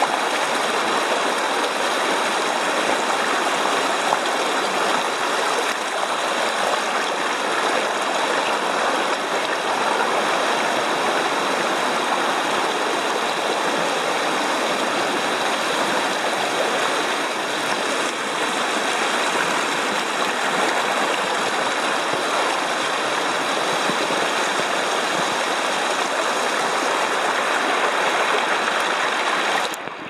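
Shallow mountain creek rushing over rocks in a steady, even wash of running water. It cuts off suddenly at the very end.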